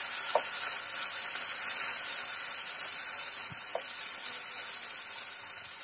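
Chopped ridge gourd sizzling steadily in hot oil in a nonstick kadai as it is stirred with a silicone spatula, with two faint clicks of the spatula. The sizzle eases slightly toward the end.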